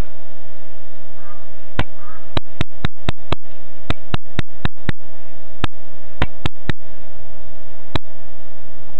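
A steady, even hum with a run of about sixteen sharp clicks, bunched from about two seconds in to near the end.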